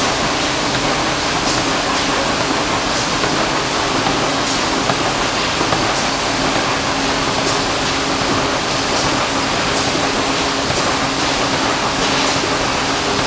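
Automatic carton flexo printing, slotting and die-cutting machine running: a loud, even mechanical noise with a low steady hum and a light click about every second and a half.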